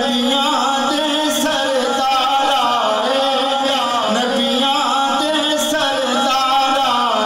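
A man singing a naat, a devotional Islamic chant, in long melodic phrases with gliding, ornamented pitch.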